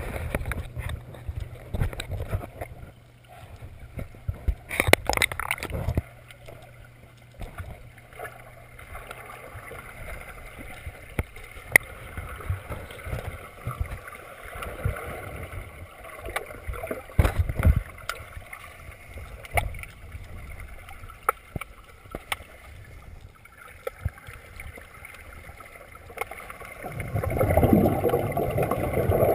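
Muffled underwater sound picked up by an action camera in its waterproof housing: low, uneven water rumble with scattered knocks and clicks. A louder stretch of rushing water noise begins near the end.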